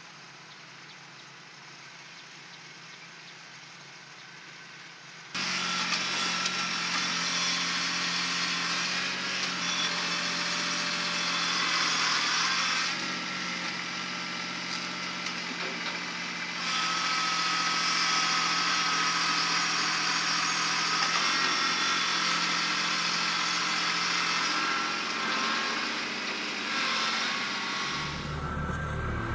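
Kubota B2261 compact tractor's three-cylinder diesel engine running: quiet for the first few seconds, then suddenly much louder about five seconds in as the tractor works its way back out of the mud. It stays loud and steady, with a change in its high notes twice.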